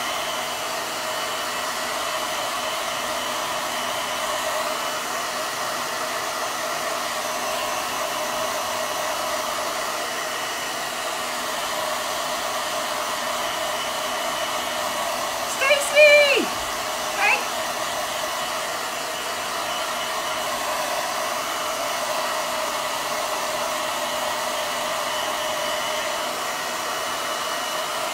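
Handheld hair dryer running steadily. About halfway through, a short pitched call that falls in pitch rises above it, followed a second later by a shorter one.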